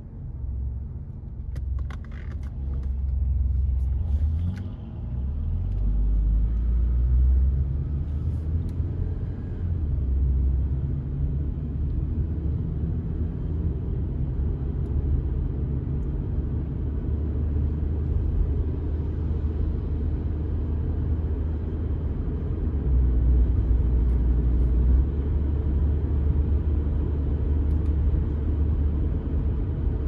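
Car driving: a steady low rumble of engine and road noise, growing louder over the first few seconds, with a few faint clicks near the start.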